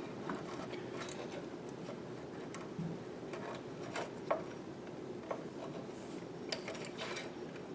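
Scattered faint clicks and light metallic ticks as a small carburetor linkage spring is worked back onto its hook by hand, over a low steady room hum.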